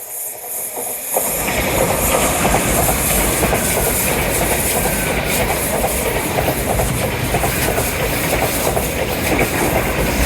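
A train passing close by on the line, its wheels clattering over the rails. It comes in suddenly about a second in and holds steady and loud, with a high whine running through it.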